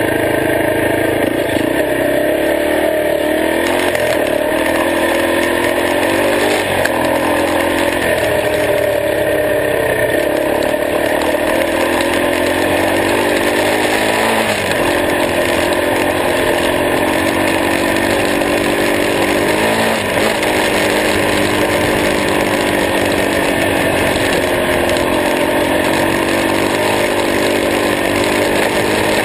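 Honda XR250R dirt bike's single-cylinder four-stroke engine running under way. Its pitch climbs and then drops back again several times as the rider works the throttle.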